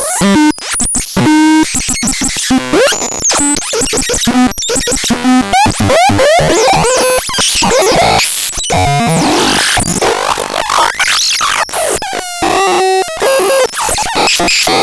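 Synthesizer making a fast, chaotic jumble of electronic tones, sweeping pitch glides and bursts of noise that change every fraction of a second.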